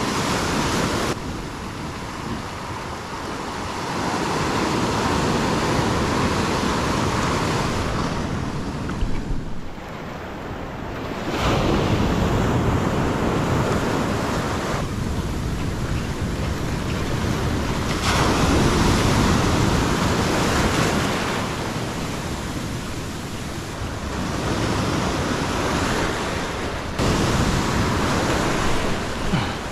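Ocean surf breaking and washing over a rocky reef shelf at the water's edge, a rushing wash that swells and ebbs over several seconds, dropping off briefly about ten seconds in.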